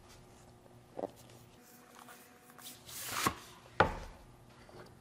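A knife box handled against a wooden cutting board. There is a light knock about a second in, then a rubbing slide that builds to a tap after three seconds, then a sharp knock just before four seconds, the loudest sound.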